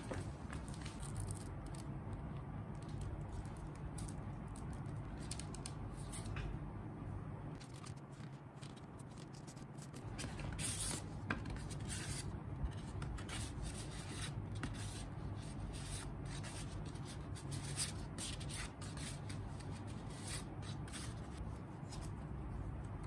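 Album packaging being opened and handled by hand: a steady run of scraping, rubbing and crinkling of plastic and cardboard, with many short sharp clicks and ticks.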